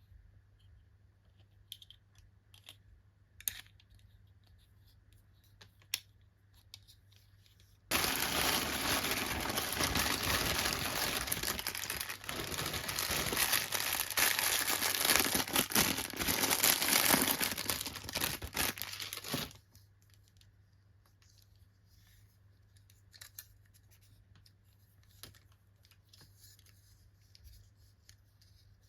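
Toy packaging being opened by hand. A few light clicks and snips come first, then about twelve seconds of loud, continuous tearing and crinkling, then light scattered handling clicks again.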